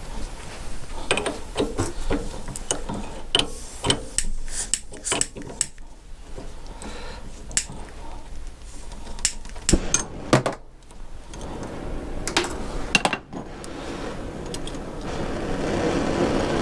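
Metal tools and parts clinking and knocking at a metal lathe, many short sharp strikes, over a low steady hum, with a rising noise in the last few seconds.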